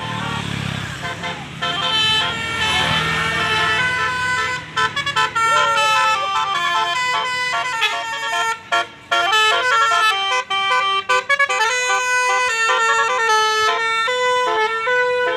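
A tour bus's multi-tone 'telolet basuri' air horn plays a fast melody. Its notes step from pitch to pitch several times a second, with a few short breaks between phrases. A low engine rumble sits under the first few seconds.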